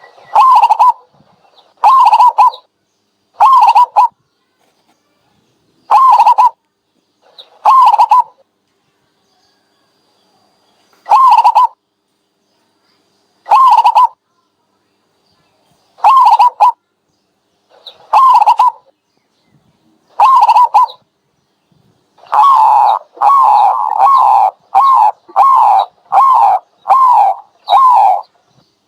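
Dove calling over and over, each call a short note falling in pitch. The calls come roughly every two seconds, with one longer pause, then close together in a quick run near the end.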